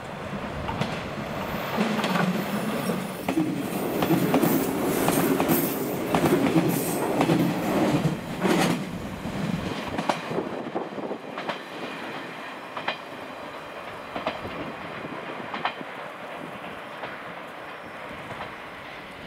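JR West 113 series four-car electric multiple unit passing close by, its wheels clattering over the rail joints. The sound builds about two seconds in and is loudest through the middle, then fades as the train runs away, with a few single wheel clicks still heard.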